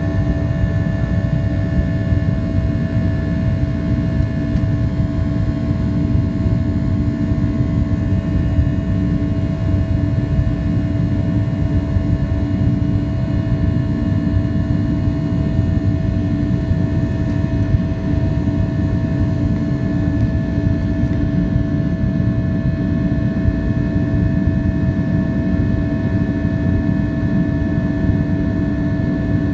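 Jet airliner engines and airflow heard from inside the cabin: a steady, loud rumble with a few constant whining tones over it.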